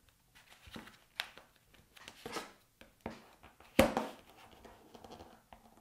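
Paper being folded and creased by hand: several short rustles and scrapes as the sheet is turned and pressed flat, with one sharper knock about two-thirds of the way through.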